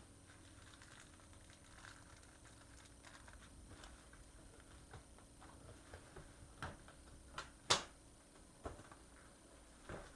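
Scattered small clicks and taps of hard plastic as a car key-fob remote's case is handled, with one sharper click about three-quarters of the way through.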